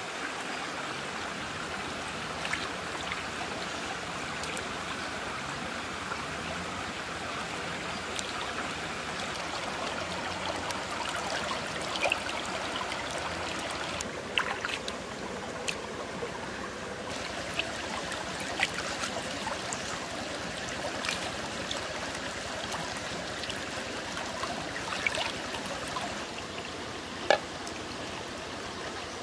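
Shallow rocky stream flowing and trickling steadily, with a few small splashes and clicks scattered through it as hands work in the water.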